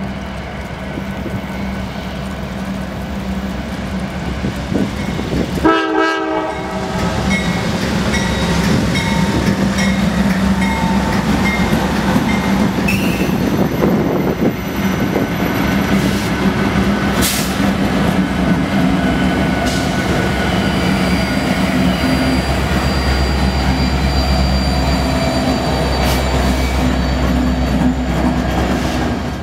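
Long diesel freight train passing close, led by a Norfolk Southern Dash 9-40CW with a consist of SD60, SD90/43MAC, SD70ACe and SD70M locomotives. The engines' low drone grows louder as the train nears, and the horn sounds about six seconds in. The freight cars follow with wheels clattering and squealing.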